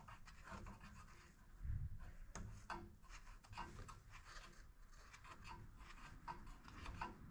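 Faint scraping and light clicking as the dipstick is screwed into and worked in the snowblower engine's oil fill tube, with one dull thump a little under two seconds in.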